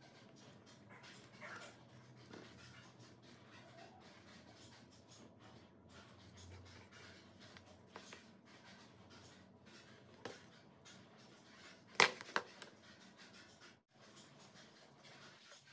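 Faint handling noises of small wooden parts being fitted together and turned over on a tabletop: light scrapes and taps, with one sharp knock about twelve seconds in.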